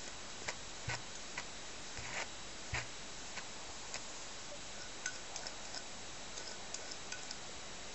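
Irregular light clicks and ticks from a grooming tool working through a Shih Tzu's long coat, over a steady hiss.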